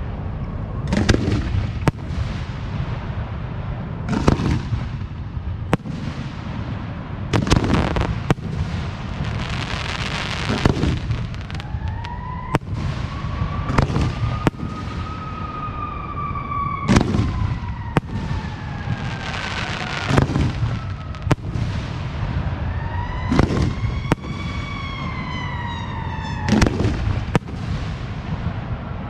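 Aerial firework shells bursting in a string of booms, one every second or few, each ringing out after the bang. An emergency vehicle siren wails through them, rising and falling twice.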